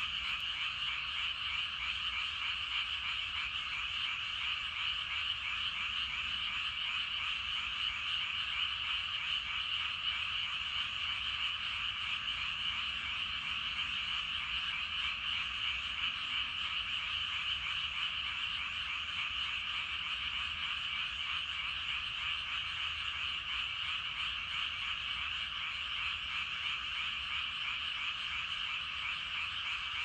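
A tremendous chorus of many frogs in a flooded rice paddy, calling all at once. The countless overlapping croaks merge into a steady, unbroken din.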